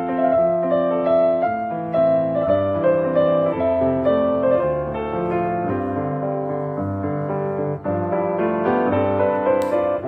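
Background piano music: a melody of held notes changing every half second or so over lower accompanying notes, with a short break a couple of seconds before the end and a brief click near the end.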